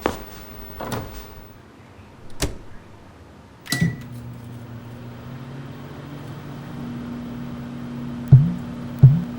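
Advert sound design: a few sharp clicks, one with a short high beep, then a steady low hum that swells slowly. About eight seconds in, heavy bass thuds begin.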